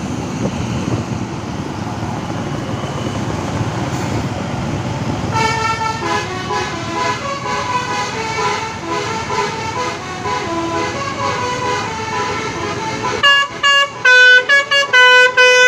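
Telolet basuri multi-tone bus air horn playing a tune in short pitched blasts. It comes in about five seconds in over a low rumble of engine and traffic, and near the end becomes much louder, with sharp, separate notes.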